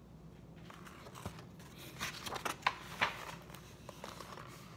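Pages of a thin picture book being turned and handled: soft paper rustles and a few light taps, busiest two to three seconds in.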